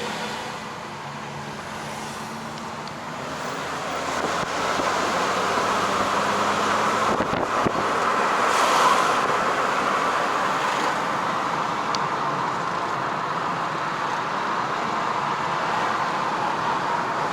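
Car driving in traffic: steady road and engine noise that grows louder about four seconds in.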